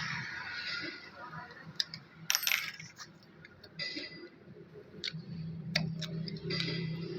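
Small metal parts of a diesel injection pump clinking and clicking as they are handled and fitted, a few sharp taps spread out, with a low steady hum setting in near the end.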